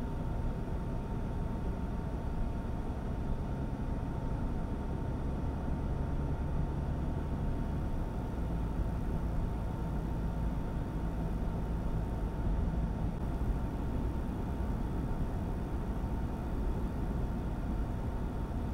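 A car driving on a snow-covered highway: a steady low rumble of engine and tyre noise, with a thin steady tone above it.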